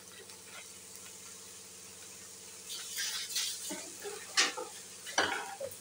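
Faint kitchen handling at the stove over a low steady hum: a few short scrapes and rustles in the second half, around a steel kadhai of rice just dosed with soy sauce.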